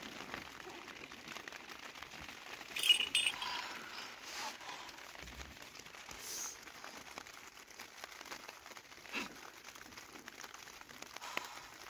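Faint rustling and crinkling of cloth, with scattered small clicks and one brief, sharper sound about three seconds in.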